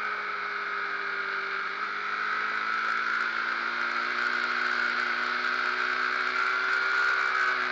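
Ducati Streetfighter's L-twin engine running steadily at cruising revs through bends, its pitch drifting gently and rising slightly near the end, heard from a camera mounted on the bike with wind rush over it.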